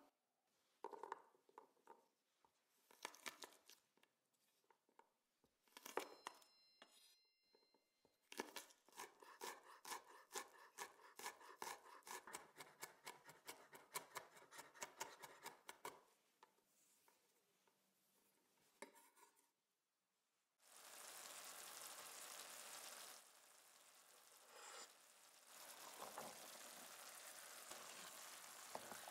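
A knife chopping garlic on a wooden cutting board: scattered taps, then a fast, even run of strokes lasting several seconds. After a brief pause, about two-thirds of the way in, a pan of tomato sauce and chickpeas starts sizzling steadily.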